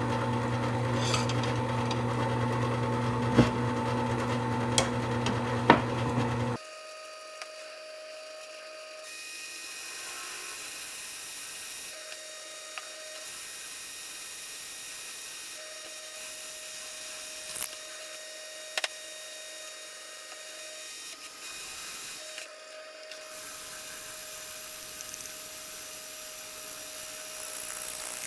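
Electric drill running steadily as a hole is drilled through the steel cleaver blank, then stopping suddenly about six seconds in. After that a quieter steady whine runs on, cutting out briefly a few times, with a few light clicks.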